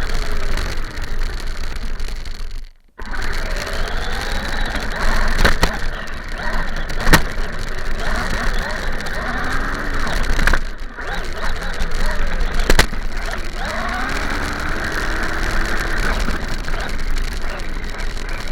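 Radio-controlled car driving, its motor revving up and down over rough running noise, with a few sharp clicks and two brief dropouts in the sound.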